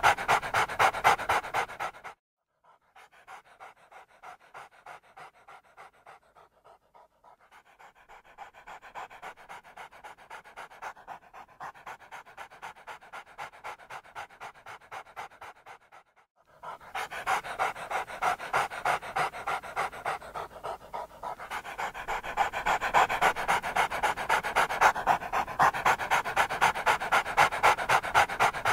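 A dog panting rapidly in quick, even breaths, loud and close. The panting drops to faint about two seconds in and comes back loud at about 17 seconds.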